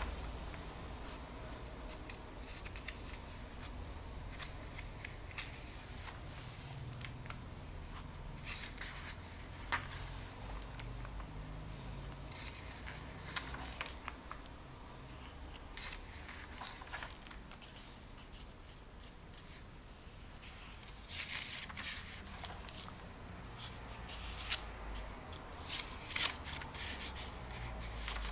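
Comic-book pages being turned and smoothed flat by hand: short, irregular paper rustles and swishes, over a faint low steady hum.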